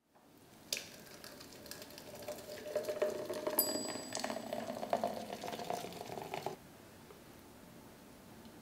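Thick chocolate banana shake poured into a tall glass: a steady pouring stream that builds and then cuts off suddenly about six and a half seconds in. A bright ringing glass clink comes about three and a half seconds in.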